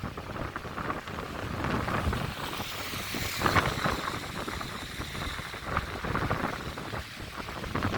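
Wind buffeting the microphone over the rush of the flooding Nooksack River, in irregular gusts.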